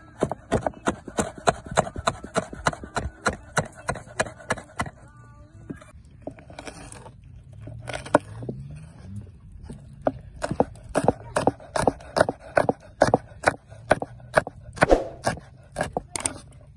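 Chef's knife chopping green chillies and bell peppers on a wooden cutting board: quick, even knocks of the blade on the board, about four a second. The chopping thins out for a few seconds in the middle, then picks up again.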